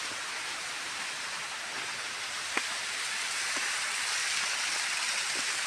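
Small waterfall running low, a thin cascade falling onto rocks and into a pool, giving a steady hiss of water that grows a little stronger in the second half. One sharp click about halfway through.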